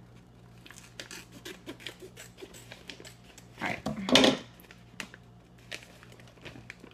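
Scissors snipping open a plastic snack pouch, with scattered small clicks and crinkles of the packaging. A louder rustle or rip of the bag comes about four seconds in.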